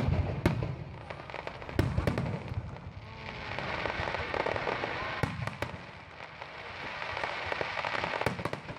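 Fireworks display: aerial shells bursting with deep booms and sharp cracks in the first couple of seconds, then a dense run of crackling and popping from the bursting stars.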